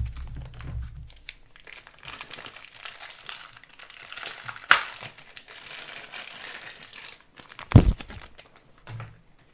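Plastic packaging crinkling and rustling as it is handled and pulled apart. There is a sharp click a little before five seconds in, and a heavy thump near eight seconds is the loudest sound.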